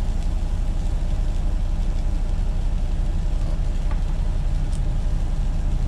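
Steady low rumble of a semi truck's diesel engine idling, heard from inside the cab, with a few faint light clicks of a serving spoon.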